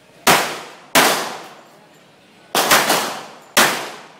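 Five handgun shots fired in a practical-shooting course of fire: two single shots about two-thirds of a second apart, a quick double tap about two and a half seconds in, then one more shot near the end. Each shot is sharp and loud with a short echoing tail.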